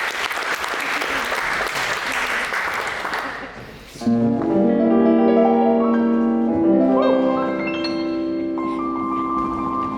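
Audience applauding, dying away about three and a half seconds in. Then recorded music starts with slow, held keyboard chords.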